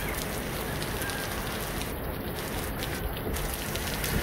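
Steady rain falling: an even hiss dotted with many small, quick drop impacts.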